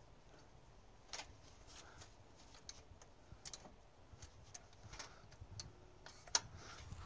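Faint, irregular small metal clicks and ticks from the Edelbrock 1406 four-barrel carburetor's throttle linkage being worked by hand, with one sharper click a little after six seconds in.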